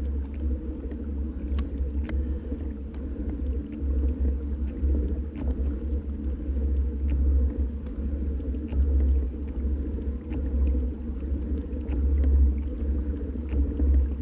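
Old Town Predator PDL pedal-drive kayak under way: a steady low rumble from the drive and hull, swelling and easing unevenly, with faint light ticks over it.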